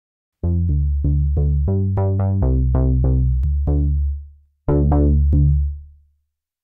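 Cherry Audio Octave Cat software synthesizer, an emulation of the 1976 Octave CAT duophonic synth, playing the 'Fat Vato Bass' preset: a riff of short, low bass notes at about three a second, each with a bright attack that quickly dulls. The riff ends on two longer notes that fade out.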